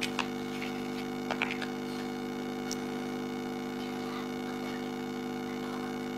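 A steady electrical hum, with a few light clicks of plastic building blocks being pressed together in the first three seconds.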